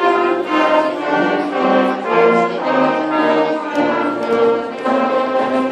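A student concert band playing a piece live, woodwinds including saxophones carrying a melody of short notes that change several times a second.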